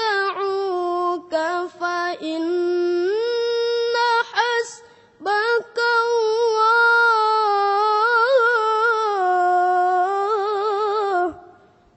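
Quran recitation in melodic tilawah style: a single unaccompanied voice holds long, ornamented notes with wavering trills. It breaks briefly for breath about five seconds in and ends on a falling note shortly before the close.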